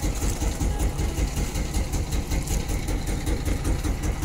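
Engine of an outrigger fishing boat running steadily, heard from on board.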